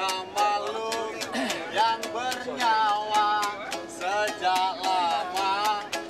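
A busker strumming a ukulele in a steady rhythm, about two strums a second, and singing a melody over it.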